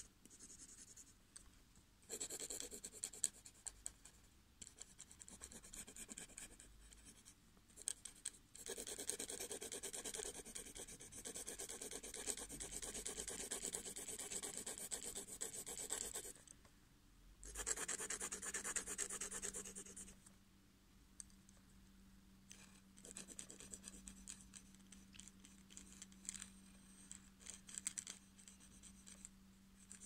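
Graphite pencil scratching on paper in long stretches of back-and-forth shading strokes, broken by short pauses and getting quieter in the second half. A faint steady low hum sets in a little past halfway.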